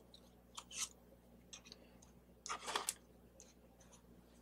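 Cardstock die cuts being handled and set down on a table: a few soft paper taps and slides, with a louder brief paper rustle about two and a half seconds in.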